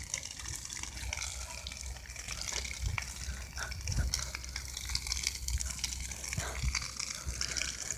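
Fire burning with a steady rushing hiss and a few faint pops.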